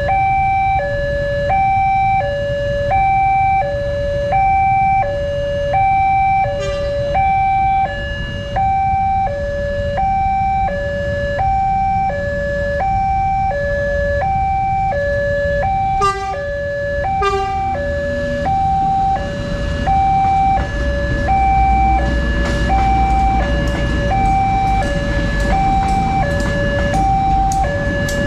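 Railway level-crossing warning alarm sounding a two-tone electronic signal, a higher and a lower tone switching about twice a second. Two short sharp sounds come about sixteen and seventeen seconds in. In the last several seconds a passenger train passes with a low rumble and regular clicking of its wheels.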